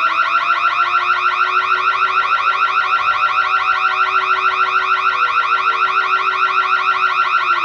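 Electronic burglar alarm sounding continuously: a loud, high warbling tone that sweeps rapidly, several times a second, without a break.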